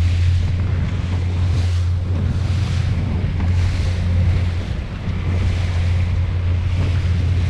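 Wind buffeting the microphone on a small boat at sea, over a steady low drone, with hissing washes of waves coming every second or so.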